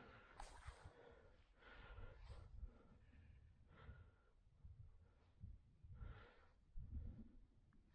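Faint breathing close to the microphone, a soft hissing breath every second or two, over a low rumble.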